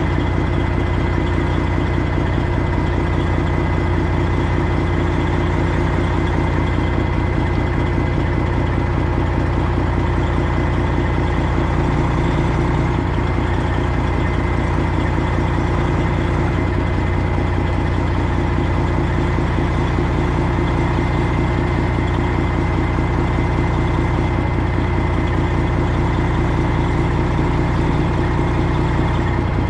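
Semi truck's diesel engine running steadily with a constant low drone.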